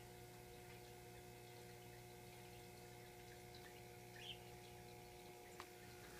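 Near silence: room tone with a steady low hum, broken by a single faint click about five and a half seconds in.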